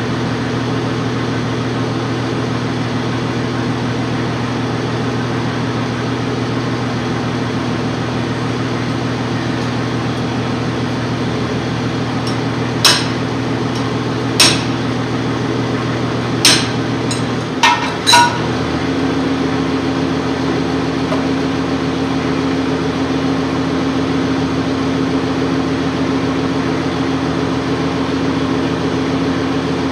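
Five sharp metallic strikes of a tool on a truck's wheel hub during brake work, spread over about five seconds around the middle, the last two close together. Under them a steady machine hum runs throughout and shifts to a higher pitch just after the strikes.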